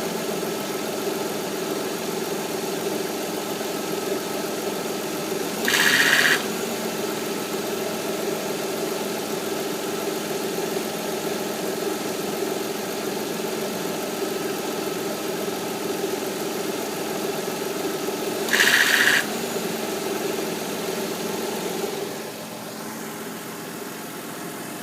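2006 Kia Optima V6 idling with the AC on, a steady drone over the engine that the owner suspects comes from a failing AC compressor clutch or coil. Twice, about 6 and 19 seconds in, a short loud hissing burst cuts in. Near the end the drone drops away and it goes quieter.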